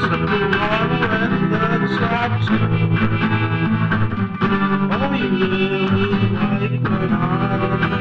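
Guitar-led song with a sung vocal, playing steadily; the music dips briefly about four seconds in.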